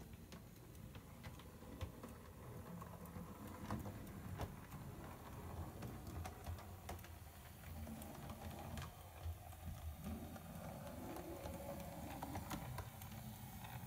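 Model railway locomotive running slowly over the track, its wheels clicking irregularly over rail joints and points above a low steady motor hum.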